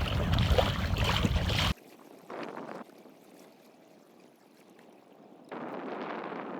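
Wind rumbling on the microphone, cut off abruptly under two seconds in. A faint hiss follows, then a steady, louder hiss of wind and water from about five and a half seconds in.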